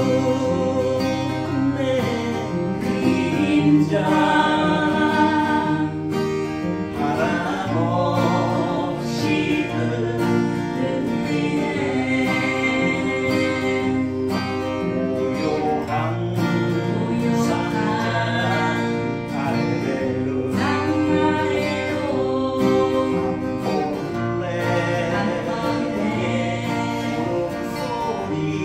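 Acoustic guitar accompanying a singer in a live performance of a Korean song, the voice held in long notes with vibrato.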